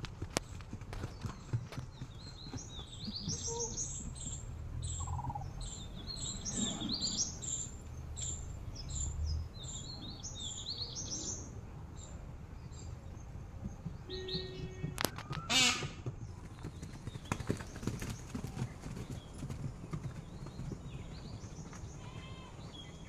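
Horses walking on grass, their hooves thudding softly, while a bird chirps over and over through the first half. A short, loud wavering call sounds about two-thirds of the way through.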